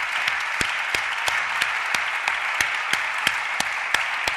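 Audience applauding, a dense steady patter of many hands, with sharper claps standing out in a regular beat of about three a second.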